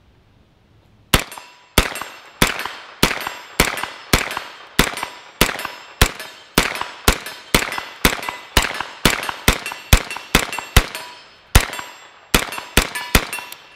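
A Freedom Ordnance FX9 9mm carbine firing semi-automatic, about two dozen shots starting about a second in, spaced roughly half a second apart and a little quicker in the middle, with a short pause near the end. A metallic ring follows many shots, from hits on a steel target.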